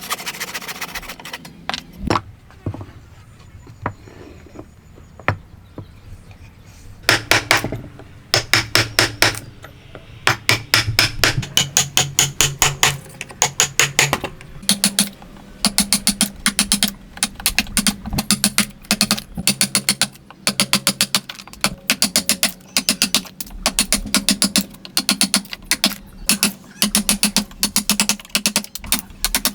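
Hand tools working wood: a few scattered knocks, then from about seven seconds in a fast, steady run of short repeated strokes, several a second.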